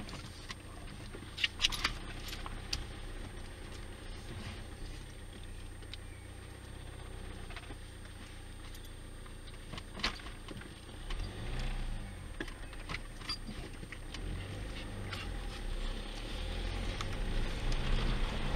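A car driving slowly on a gravel lane, heard from inside the cabin: a steady low rumble from the engine and tyres, with scattered clicks and knocks. The rumble grows louder near the end.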